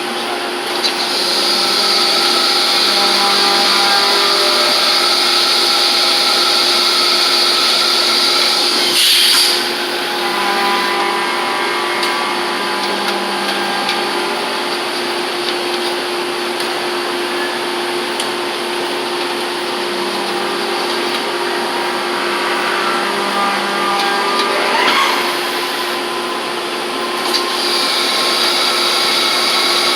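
1998 Mazak VTC-20B CNC vertical mill running under power: a steady machine hum with a high whine that stops about nine seconds in and comes back near the end. A whine rises in pitch about 25 seconds in.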